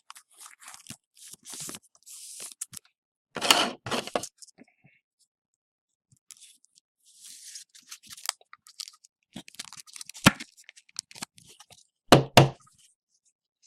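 Trading cards and their packaging being handled: intermittent rustling, scraping and tearing of paper and wrapper. There are a few sharp taps, the loudest near the end.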